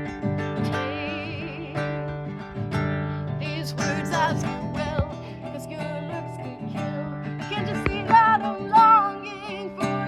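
Acoustic guitar playing a song intro, with a wavering melody line above the chords that comes in around four seconds and grows stronger near the end.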